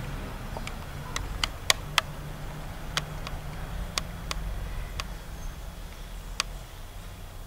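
A dozen or so irregular sharp clicks, loudest a little under two seconds in, over a steady low rumble.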